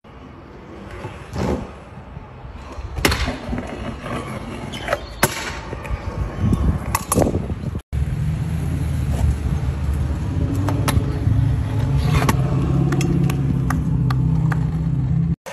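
Stunt scooter wheels rolling on concrete, with scattered sharp clacks and knocks. After about eight seconds comes a steady low rumble of small hard wheels running over rough exposed-aggregate concrete, with light clicks over it.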